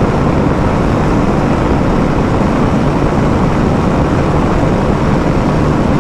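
KTM 390 Adventure's single-cylinder engine held flat out in fifth gear near its top speed of about 161 to 166 km/h, buried in heavy wind rush over the rider's microphone. The sound is a steady, unbroken rush with no change in pitch.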